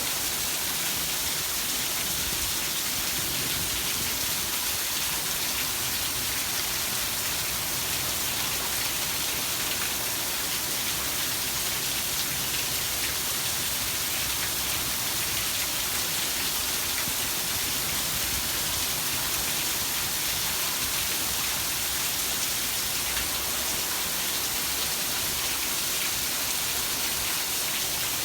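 Heavy rain falling steadily, an even hiss of many drops with no breaks.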